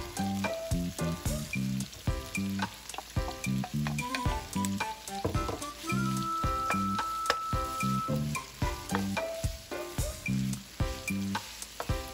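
Saltfish, onions, peppers and tomatoes sizzling in an oiled frying pan while a wooden spoon stirs and scrapes through them. Background music with a steady beat plays over it.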